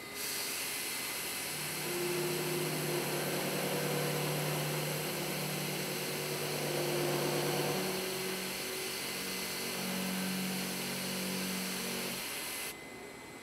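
Voortman V310's milling spindle cutting a blind hole in steel plate: a steady machining hiss over a low hum. The hum steps up in pitch about eight seconds in, and the cutting sound stops abruptly shortly before the end.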